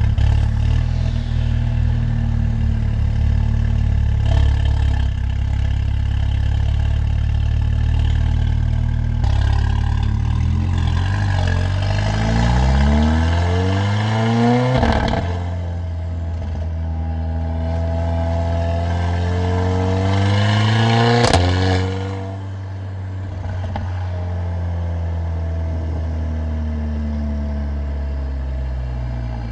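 Mercedes-AMG CLA45's turbocharged 2.0-litre four-cylinder engine and loud exhaust under way. The engine pulls up through the revs twice, each climb ending in a sharp crack from the exhaust, then settles to a steady, lower drone.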